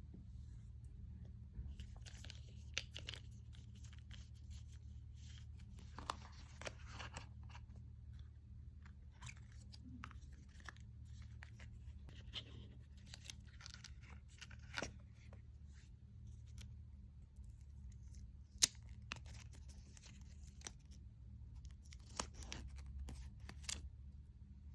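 Cardboard and paper packaging being handled and torn open: irregular rustles, tears and sharp clicks, with a few louder snaps, over a steady low hum.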